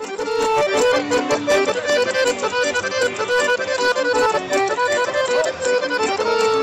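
Folk band with an upright double bass playing a lively kolo dance tune: a fast, ornamented melody full of quick trills over a steady beat.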